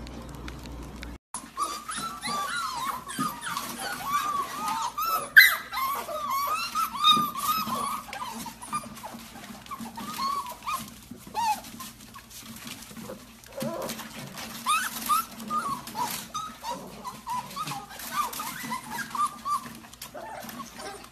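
A litter of golden retriever puppies whimpering and yipping, many short high calls overlapping almost without a break, starting about a second in. There is one sharp knock about five seconds in.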